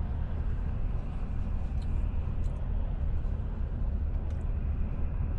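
Steady low rumble of an idling car engine, with a few faint clicks.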